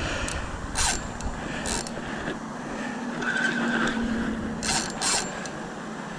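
Spinning fishing reel being worked during the fight with a big black drum, giving several short sharp scrapes or clicks, over a steady rumble of road traffic.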